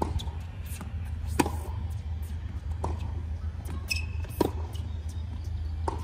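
Tennis rally on an outdoor hard court: the ball is struck with rackets about every one and a half seconds, five times, with softer ball bounces between. A short squeak comes just past the middle, over a steady low hum.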